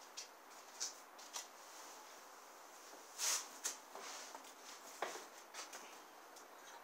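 Scattered light scrapes, knocks and rustles as a large terracotta pot is handled and shifted on a slatted wooden table. The loudest is a short scrape a little past halfway.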